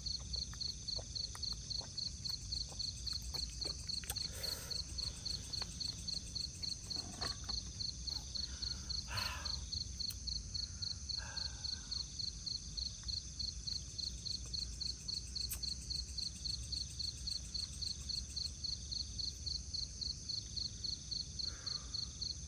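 Night insects chirping: a high chirp repeating steadily about two to three times a second over a continuous higher trill. A few soft knocks and rustles come and go in the first half.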